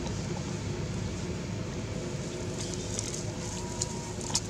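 Steady low outdoor rumble, with dry leaves crackling in short ticks in the second half as a young long-tailed macaque scampers across them.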